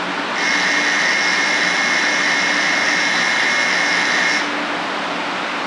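Station platform departure bell ringing steadily for about four seconds, then stopping abruptly, while the Shinkansen train waits to depart. A steady low hum runs underneath.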